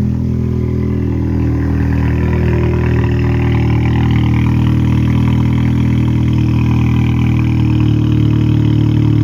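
SEAT León FR 1.5 TSI engine idling steadily on a cold start, its raised cold idle making the modified exhaust louder: downpipe, hollowed-out intermediate silencer and straight-through rear silencer.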